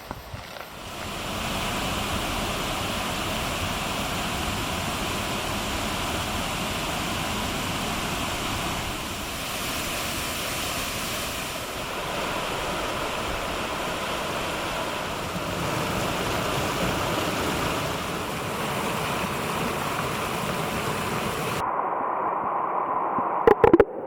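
Mountain stream running over mossy rocks, a steady rush of water. Near the end the sound turns duller and a few knocks are heard.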